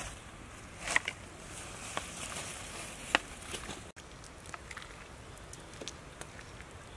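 A wooden-handled ladle scooping broth from a metal cooking pan, knocking against the pan and the shells in it: scattered sharp clicks and knocks over a soft steady hiss, the loudest about a second in and just after three seconds.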